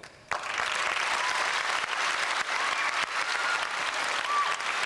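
An audience applauding, breaking out suddenly and holding steady, with a few short whistles over it.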